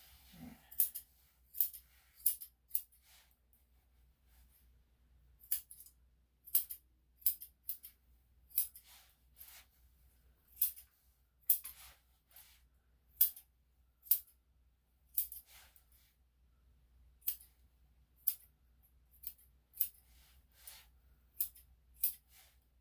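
Grooming scissors snipping a poodle-cross dog's coat: about two dozen short, sharp snips at an uneven pace, with a pause of about three seconds near the start.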